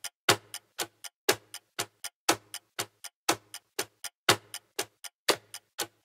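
Clock-tick sound effect counting down the thinking time for a quiz answer. A loud tick comes every half second with a softer tock between, and it stops right at the end.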